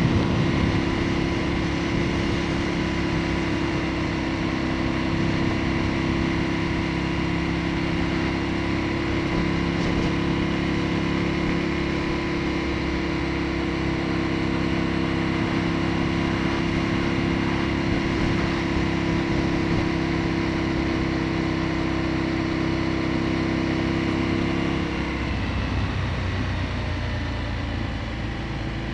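Aprilia Tuono motorcycle engine running at steady cruising revs, with wind noise from riding. About 25 seconds in the engine note drops and the sound gets a little quieter.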